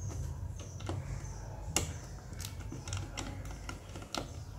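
Precision screwdriver working a tiny screw out of a plastic mouse shell: scattered light clicks and ticks of the bit and plastic, with a sharper click a little under two seconds in, over a low steady hum.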